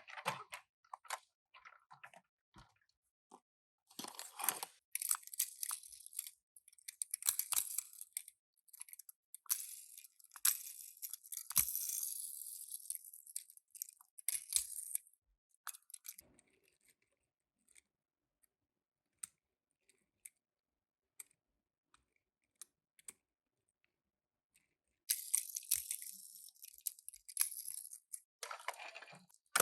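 Toy packaging being handled and opened: crinkling, rustling and tearing in several bursts, with scattered small clicks and a quieter stretch in the middle.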